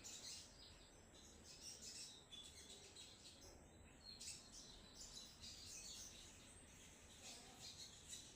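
A sogon songbird singing in rapid, chattering runs of short high notes ('trotol'), one after another without a break.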